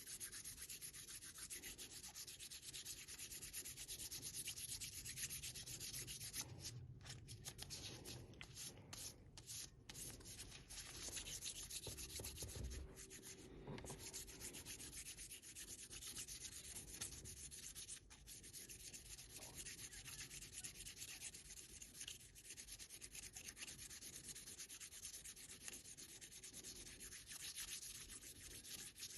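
Sandpaper rubbed back and forth by hand over an oiled wooden kitchen-knife handle in a finishing sanding pass. It makes a continuous faint, scratchy hiss, with a few brief pauses partway through.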